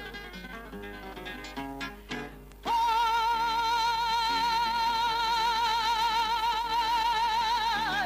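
Russian seven-string guitar playing a run of plucked notes; about two and a half seconds in, a woman's voice comes in on one long high note with wide vibrato, held for about five seconds over the guitar accompaniment, in a Russian Gypsy romance.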